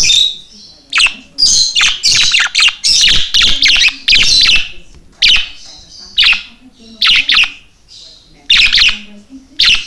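Pet budgerigar chirping and chattering: a dense run of sharp, high chirps through the first few seconds, then single chirps about once a second.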